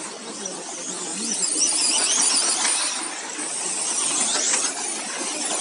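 Radio-controlled off-road trucks racing on the track: several motors whine high, their pitch rising and falling as the trucks accelerate and brake, over a steady hiss of drivetrains and tyres.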